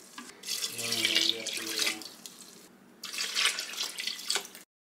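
Water poured from a metal pot into a stainless steel Instant Pot inner pot over vegetable scraps, splashing in two pours with a short lull between. The sound cuts off abruptly near the end.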